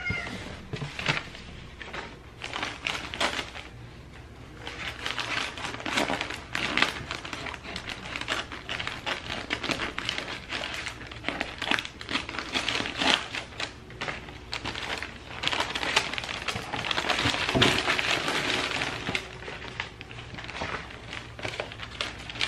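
Paper rustling and crinkling in a dense, irregular run of crackles as clothing is unwrapped from its packing paper in a box.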